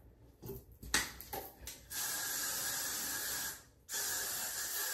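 Aerosol spray can sprayed onto hair in two long, steady hisses, with a short break between them. A sharp click comes about a second in, before the spraying.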